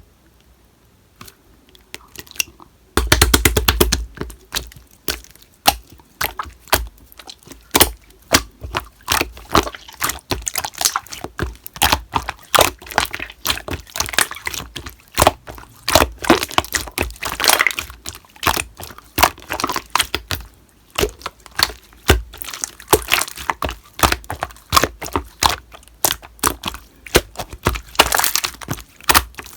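Slime being pressed and stretched by hand, giving dense, irregular crackling and popping clicks. The sound begins about three seconds in with a loud burst of crackles.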